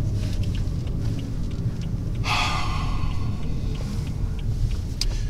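Steady low road and engine rumble inside a moving car's cabin, with a single breathy exhale about two seconds in.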